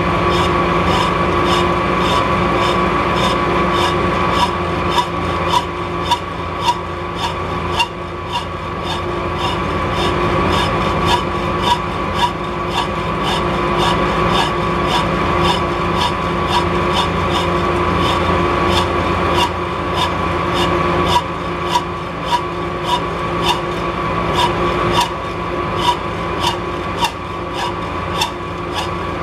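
Hand hacksaw cutting through a thin metal rod held in a lathe chuck: steady back-and-forth rasping strokes, about two a second, over a steady machine hum.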